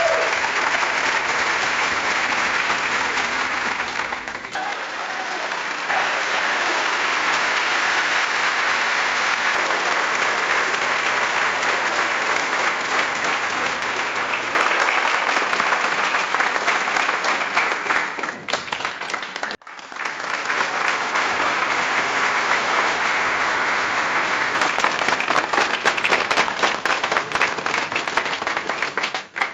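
Crowd applause: many people clapping in a dense, steady patter, made of several applause recordings joined one after another, with a short break about two-thirds of the way through.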